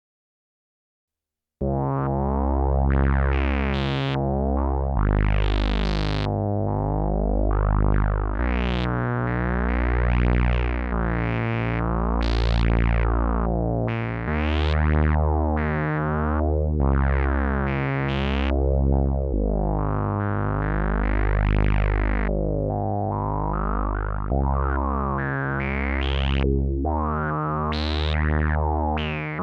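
Behringer Odyssey analog synthesizer, a clone of the ARP Odyssey, playing a slow run of deep, buzzy held notes that change every couple of seconds. Each note's tone opens bright and closes again as the filter sweeps. It starts after about a second and a half of silence.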